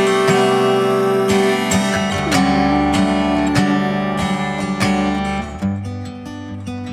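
Acoustic guitar in DADGAD tuning playing an instrumental passage of ringing chords and held notes, one note sliding down about two seconds in; it grows softer in the last second or so.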